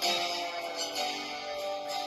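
Instrumental music, the song's intro before the vocals come in: sustained pitched notes under a bright high shimmer.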